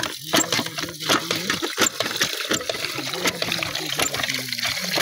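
Tap water pouring from a pipe into a steel bowl of rice and splashing, as the rice is rinsed.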